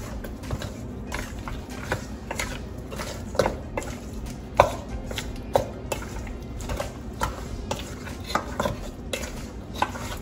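Spoon knocking and scraping against a bowl as seasoned raw oxtail pieces are stirred and turned over, in irregular clinks about one or two a second.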